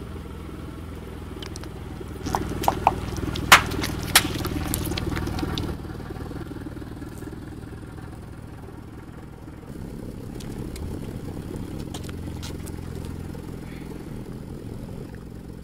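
Car engine running steadily, louder for a few seconds as the car rolls forward over mesh stress balls, with several sharp pops and cracks about two to four seconds in as the balls are crushed under the tyre.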